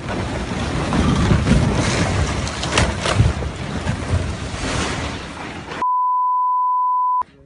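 Rockslide crashing down: a loud, noisy roar of tumbling rock with sharp cracks. About six seconds in it cuts off abruptly into a steady high censor bleep lasting about a second and a half.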